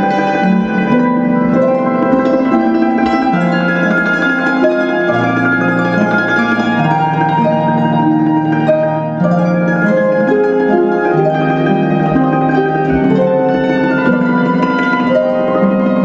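Harp music: a slow melody of plucked notes over long held low notes.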